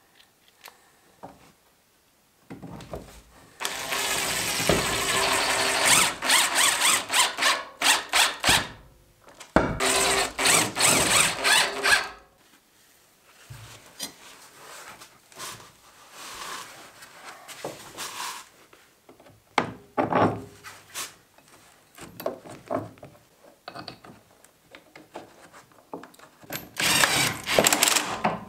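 Cordless impact driver spinning and hammering stainless bolts home through the polyethylene tub in bursts: two long runs in the first half and a shorter one near the end, with quieter clicks of handling between.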